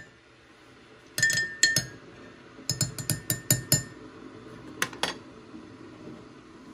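Metal spoon stirring coffee in a ceramic mug: a quick run of about seven clinks against the mug's side, with two ringing clinks before it and two more clicks near the end.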